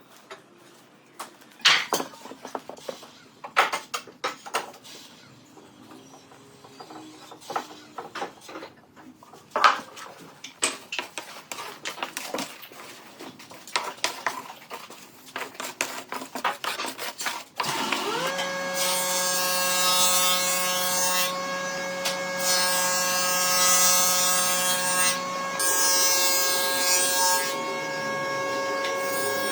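Knocks and clatter of wood pieces being handled. About two-thirds in, a small electric power tool spins up with a quick rising whine and runs steadily, cutting into wood in three stretches of harsh hissing noise.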